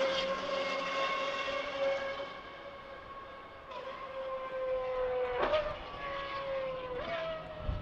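Distant racing car engine running at high revs, its note fading and slowly falling, with about three short breaks where it jumps back up in pitch.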